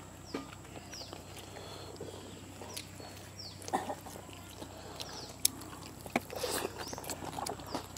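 A bird calling a short falling note again and again, roughly once a second. A few scattered clicks and soft knocks sound under the calls.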